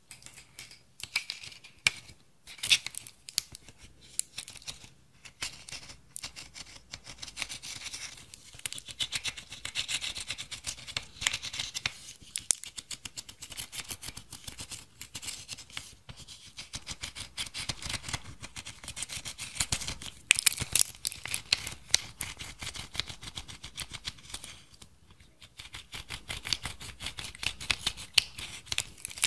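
Pressed powder eyeshadow in a plastic toy palette being scratched and crumbled with a pointed tool: rapid, crisp crunching and scratching clicks, with a few sharper cracks.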